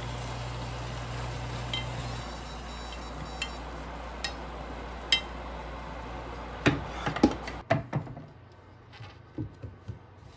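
Bulgogi beef frying in a nonstick pan with a steady hiss, chopsticks clicking against the pan a few times, then two louder knocks as the pan is handled. After that it is quieter, with a few soft taps on a wooden cutting board.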